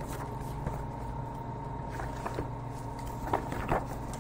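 Quiet room tone with a steady hum, and a few soft brief rustles as a picture-book page is handled and turned, about halfway through and again near the end.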